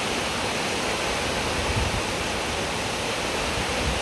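Mountain stream rushing steadily over rocks, a constant roar of falling water. Brief low rumbles come about two seconds in and again near the end.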